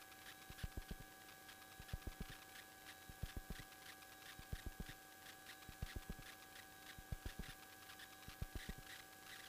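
Faint hiss and steady electrical hum on an aircraft's radio-intercom audio feed with no transmissions, broken by small groups of soft clicks roughly every second and a half.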